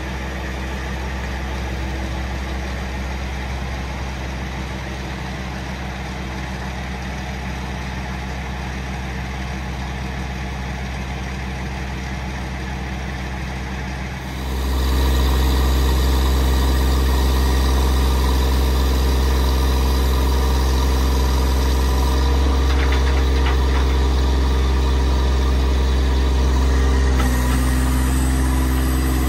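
Kubota diesel engine of a Miller EnPak running steadily while it powers the hydraulic crane. It is heard at a distance at first, then much louder and closer from about halfway through. Near the end the engine note shifts.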